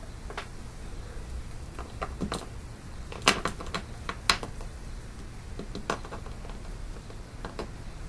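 About a dozen light, sharp clicks and taps on a glass desktop, loudest about three and four seconds in: a small toy cow figurine being knocked over by a budgerigar and stood back up by hand.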